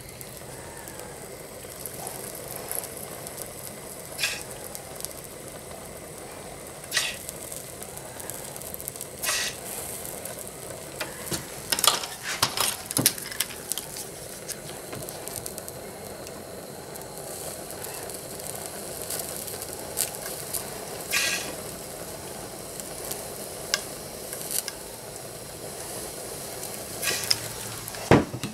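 Flux sizzling on the hot brass filler neck of a Honda 4514 mower radiator as it is soldered, a steady sizzle broken by scattered sharp crackles, several in quick succession near the middle.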